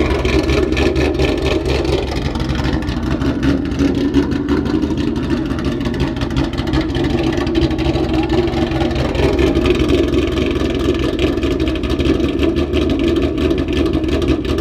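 Car engine running loud and steady at high revs for the whole stretch.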